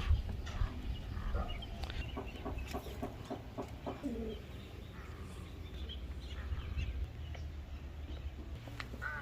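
Domestic fowl clucking: a quick run of short clucks in the first half, then sparser calls, over a low steady rumble.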